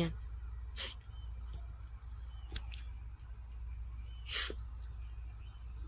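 Crickets chirring in a steady, unbroken high-pitched drone over a low steady rumble, with two short soft breathy sounds, about a second in and again past the four-second mark.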